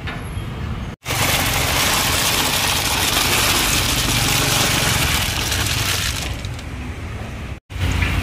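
Snails tipped from a metal tray into a pot of water, their shells rattling and splashing in a dense cascade for about five seconds, starting about a second in and easing off near the end.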